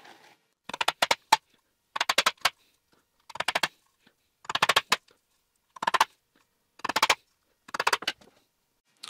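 Hammer driving roofing-felt nails into a wooden board, steel striking nail heads in quick runs of several taps. About seven runs come roughly a second apart, with abrupt silence between them.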